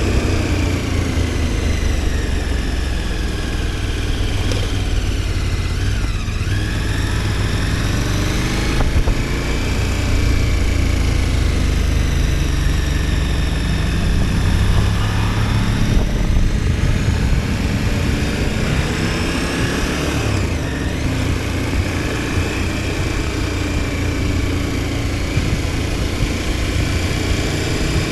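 KTM 1290 Super Adventure S's V-twin engine under way, its pitch rising and falling several times with throttle and gear changes, over a strong, steady low rush.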